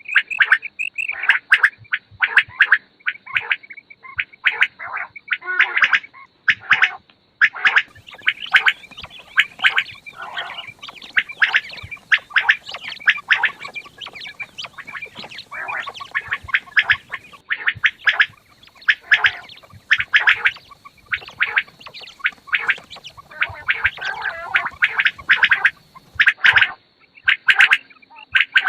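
Quails calling: a dense, irregular run of short, sharp calls, several a second, broken by brief pauses.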